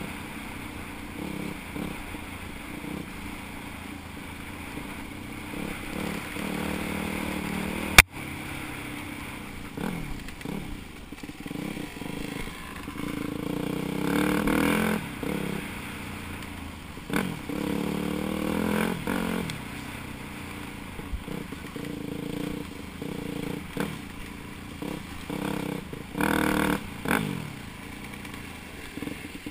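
Off-road dirt bike engine running on a trail ride, revving up and falling back again and again with the throttle, over rattles and knocks from the rough ground. A single sharp knock about eight seconds in.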